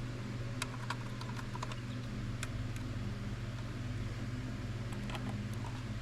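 Scattered light clicks and ticks of small screws being handled and started by hand with a screwdriver into a dash gauge cluster, over a steady low hum.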